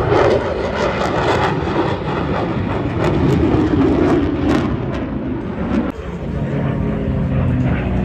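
Fighter jet passing overhead, a loud, broad roar. About six seconds in it gives way to a single-engine propeller plane flying by, its engine a steady drone.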